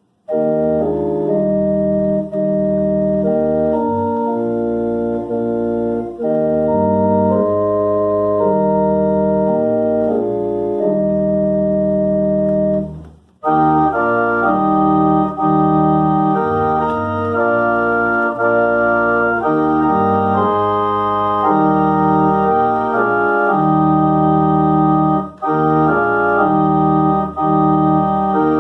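Organ playing slow sustained chords. It starts suddenly out of silence, breaks off briefly about halfway through, then comes back fuller and brighter.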